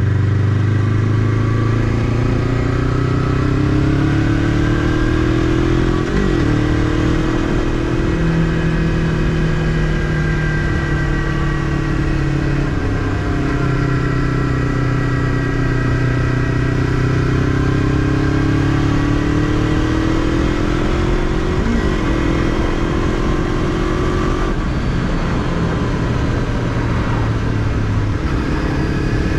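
Honda CBF500's 499 cc parallel-twin engine running under way, its note rising and falling gently with speed, with a brief break twice, about six seconds in and again near twenty-two seconds.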